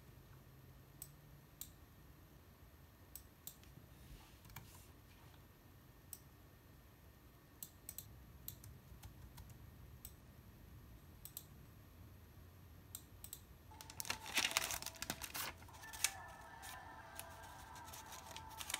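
Quiet, scattered light clicks and taps, a second or so apart, then a quick run of dense clicking about three-quarters of the way through.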